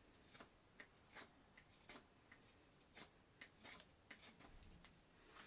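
Mora carving knife shaving thin slivers off a quartered hazel stick: faint, short scraping strokes at about two to three a second, uneven in spacing.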